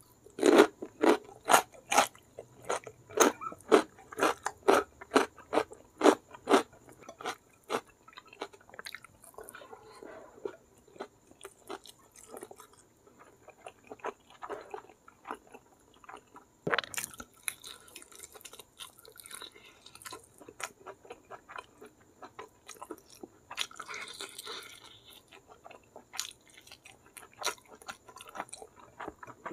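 A person chewing with loud crunches, about two or three a second for the first several seconds, fitting a mouthful of raw cucumber. Then softer, wetter chewing of hand-eaten rice and mutton curry, with a sharp click about halfway through.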